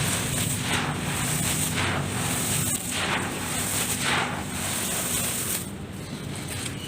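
Dry, crumbly dirt and gym chalk being crushed and mixed by hand in a tub. It comes as crackly, crumbling swishes about once a second, with a short lull near the end.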